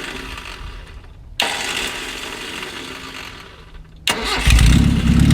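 1982 Datsun wagon's four-cylinder engine being cranked. It fires and fades twice, then catches about four and a half seconds in and runs loudly on some throttle. It is being kept alive with a little gas because it will not hold an idle on its own.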